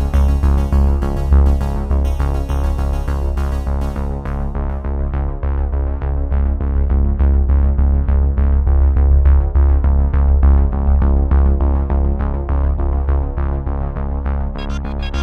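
Background electronic music with synthesizer chords, a heavy bass and a steady beat.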